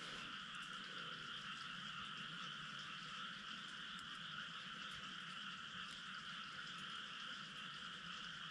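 A faint, steady night chorus of calling frogs, with a few faint clicks scattered through it.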